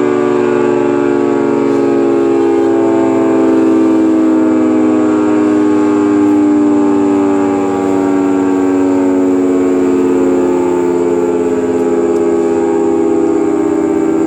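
Federal Signal 2T22 dual-tone rotating outdoor warning siren sounding its steady alert chord during a test. The loud two-tone wail swells and dips as the head turns, and its pitch drifts slowly lower.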